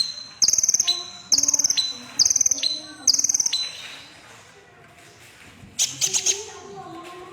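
Kolibri ninja (red-breasted sunbird) singing: a string of short, high, buzzy trilled phrases, about one a second, each dropping in pitch at its end, then after a pause a quick burst of sharp rapid notes near the end.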